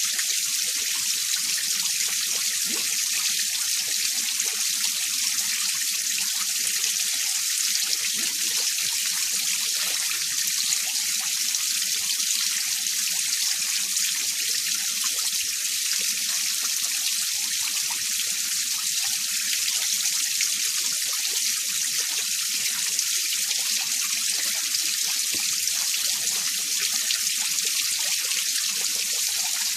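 Mountain stream running over rocks: a steady, even rush of water with a bright hiss and a faint low burble underneath.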